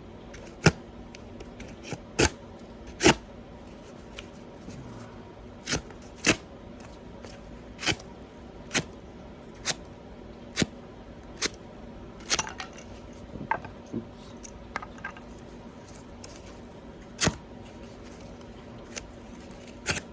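A CRKT Fossil folding knife cutting through cardboard: about twenty short, sharp clicks and snaps at irregular intervals, roughly one a second, over a faint steady hum.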